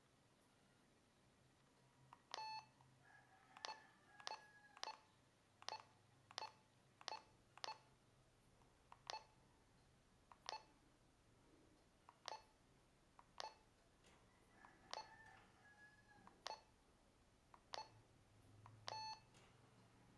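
Keypad beeps from a Motorola Talkabout EM1000R walkie-talkie as its buttons are pressed: about fifteen short beeps at uneven intervals, starting about two seconds in, with a longer beep near the start and another near the end.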